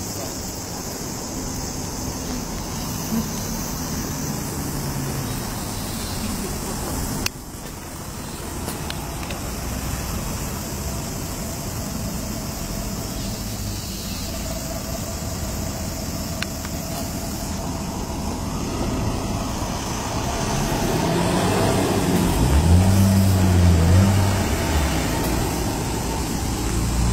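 Steady road traffic noise of a city street, dropping suddenly about seven seconds in. Near the end a louder low sound with a wavering pitch swells up, like a vehicle's engine passing close by.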